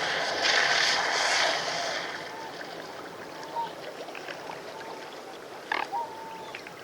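Swans on water: a burst of splashing for about the first two seconds, then several short, thin calls over quieter water.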